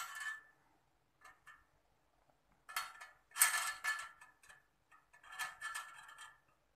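Metal clinking and ringing as a small homemade spoke wrench works the spoke nipples of a motorcycle wheel, tightening the spokes, in a few short irregular bursts.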